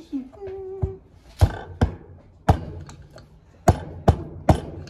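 About seven sharp, unevenly spaced knocks as a turbo boost pipe is struck to seat it fully over its O-ring fitting. A short hummed note sounds just before the first knock.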